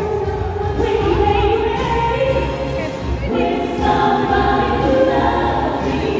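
Live band music with female vocals singing a melody over the band.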